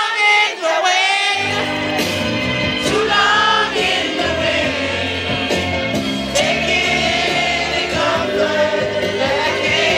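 Loud dance music with a lead singing voice; the bass cuts out for about the first second and a half, then comes back in.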